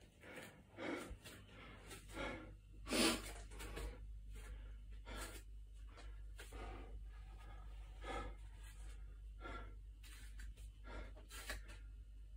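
A man's heavy breathing as he recovers from a planche workout: breaths about once a second at first, spacing out toward the end, the loudest about three seconds in. A steady low hum lies underneath.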